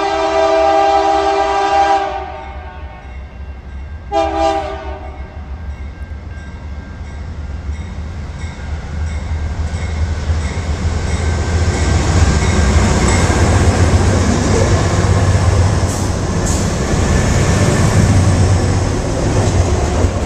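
Diesel freight locomotive's air horn sounding a chord of several notes: a long blast that ends about two seconds in, then a short blast about four seconds in. The locomotives and a train of truck trailers on flatcars then pass close by, a rumble of engines and wheels on rail that builds and stays loud, with a couple of sharp clicks near the end.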